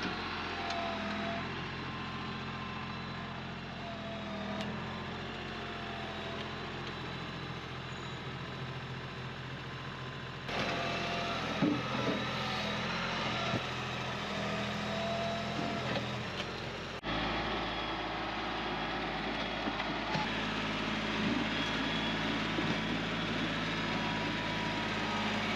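Heavy earth-moving equipment's engine running steadily, with some wavering whine over the hum. The sound shifts abruptly twice, about ten seconds in and again about seventeen seconds in.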